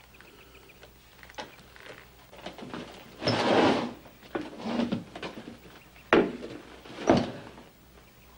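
Wooden furniture moved and sat on at a wooden table: a scrape a few seconds in, a shorter one after it, then two sharp wooden knocks about a second apart.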